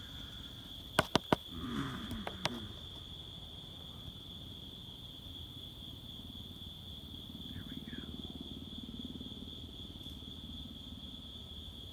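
Crickets chirring steadily in a constant high trill. Three sharp clicks come close together about a second in, and another about two and a half seconds in.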